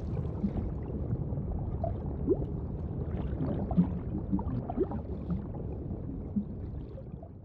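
Muffled underwater water sound: a low, steady rumble with scattered small bubble blips and a couple of short rising bubble chirps.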